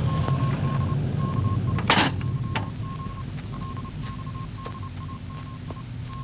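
A steady low hum with a high beeping tone pulsing on and off about three times a second, and one loud sharp crack about two seconds in, followed by a few faint clicks.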